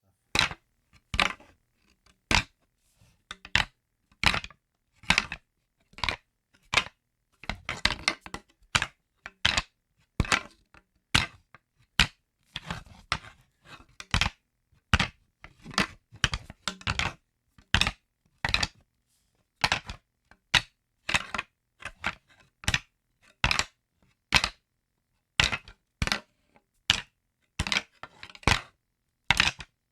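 Wooden sticks knocking together in sharp, irregular clacks, about one or two a second, now and then in quick rattling flurries.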